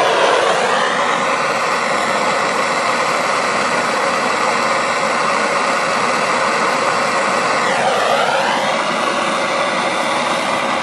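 Handheld propane torch burning with a steady hissing roar as its flame is played on a cast iron part. The tone dips and comes back briefly about eight seconds in, as the torch is moved.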